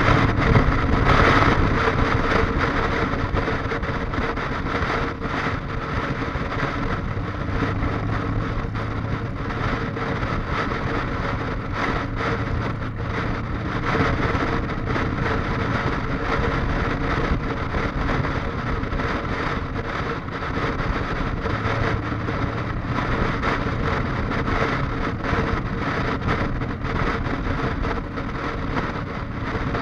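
Motorcycle engine running steadily at cruising speed, with wind rushing past the rider's own bike.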